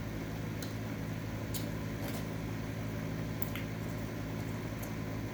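Steady hum of a room air conditioner's fan, with a few faint short clicks scattered through it.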